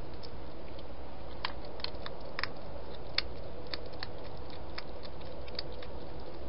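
European hedgehog eating from a bowl: short, sharp crunches at irregular intervals, most of them in the middle seconds, over a steady hiss.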